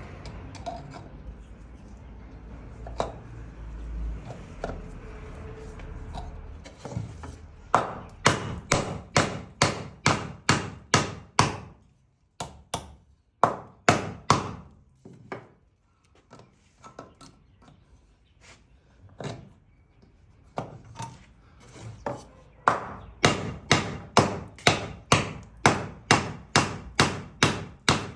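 Repeated hammer blows, about two to three a second, coming in runs with a few seconds of scattered knocks between them. They start after several seconds of low background noise.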